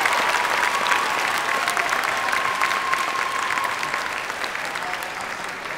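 Audience applauding, with many claps blending into a dense patter that slowly dies down.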